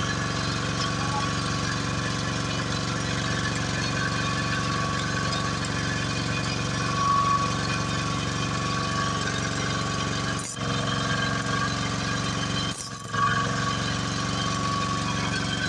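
An engine idling steadily at an even pitch, cutting out briefly twice in the second half.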